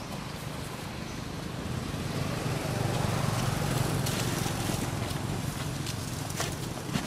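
A motor vehicle passing: a low rumble that swells to its loudest three to four seconds in, then fades. Scattered light taps and rustles run through it as monkeys scramble over a plastic tarp, with one sharp knock near the end.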